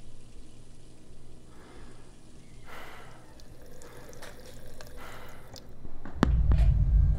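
Tap water running in a thin stream into a sink, with scattered drips and ticks. About six seconds in a sharp click sounds, and a loud low hum starts at once.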